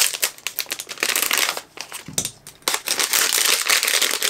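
Crinkling of a figure's packaging wrapper being handled and pulled open by hand. It comes in two spells of crackling with a short pause between them.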